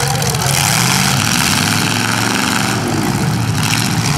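Demolition derby car engines running loudly, one revving up with a rising pitch about two seconds in.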